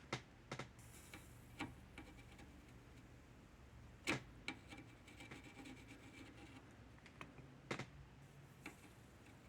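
Scattered light clicks and taps of small parts and tools being handled on a workbench, about a dozen spread irregularly, the sharpest about four seconds in and a quick pair near the end, over a faint steady hum.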